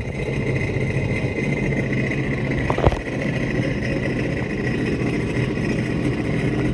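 2016 Sea-Doo RXT 260's supercharged three-cylinder Rotax engine idling steadily shortly after a cold start, with a brief click about three seconds in.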